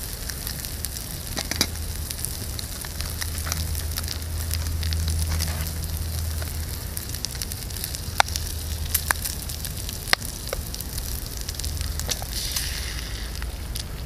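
Bacon sizzling in a small titanium frying pan over a titanium wood-burning gasifier stove, a steady hiss with the twig fire underneath crackling in many small sharp pops. A few louder sharp clicks come about eight to ten seconds in.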